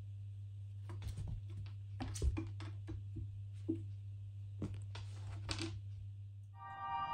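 Faint scattered taps, scuffs and rustles of a kitten pouncing and scrambling on a laminate floor and under a draped blanket, over a steady low hum. Music fades in near the end.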